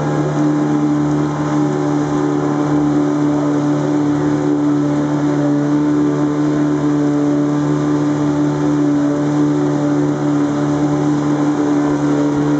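A motorized canoe's engine drones steadily at cruising speed, holding one even pitch throughout, with the hiss of water and rain beneath it.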